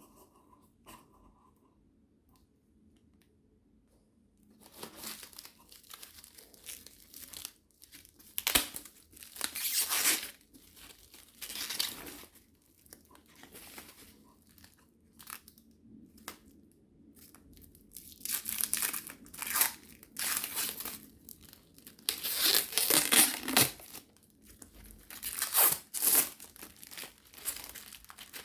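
Product packaging being torn open and crinkled by hand in irregular bursts, after a few quiet seconds of light handling clicks.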